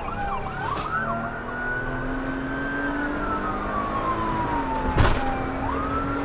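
Police car siren in a fast yelp for about the first second, then changing to a slow wail that rises, holds and falls before climbing again near the end, over the steady drone of a car engine. A single sharp knock about five seconds in.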